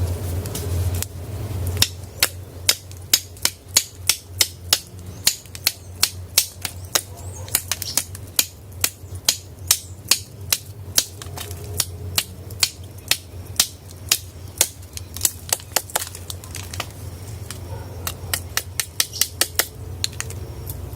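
A long run of sharp, evenly spaced knocks, about two or three a second, starting about two seconds in and growing sparser near the end, over a steady low rumble.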